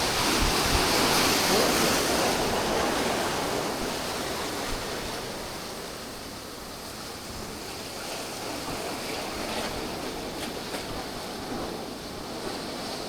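Ocean surf washing onto a beach, a swell of noise in the first few seconds that eases off and then builds a little again.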